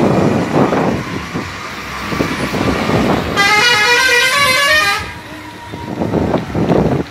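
A decorated bus passing close by and pulling away, with its horn sounding a quick run of changing notes for about a second and a half midway.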